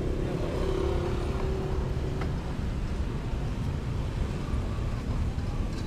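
Steady rumble of road traffic, with a held engine-like tone in the first two seconds.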